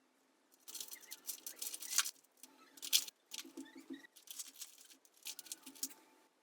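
Hands working on a small Bluetooth speaker: irregular bursts of scratching, scraping and clicking of small parts being handled, with brief pauses between bursts.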